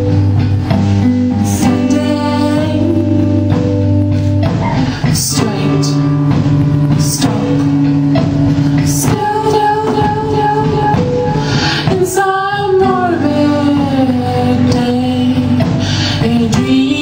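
Music with a singing voice over held instrumental notes.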